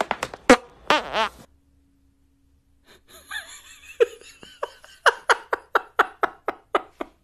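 A man laughing hard in quick gasping bursts, about three to four a second, starting about three seconds in after a short silence.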